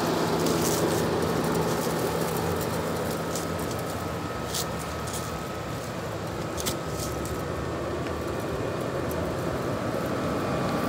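Vintage Westinghouse 23,500 BTU room air conditioner running: a steady rush of air from its fan, with a low compressor hum that fades about four seconds in. It is blowing cold air.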